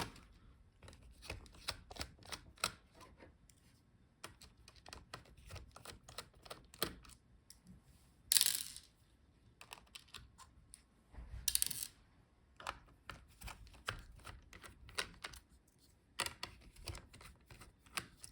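Irregular small clicks and ticks of a screwdriver working the screws of a laptop's heatsink and cooling-fan assembly, with a few brief louder scrapes of metal and plastic parts being handled.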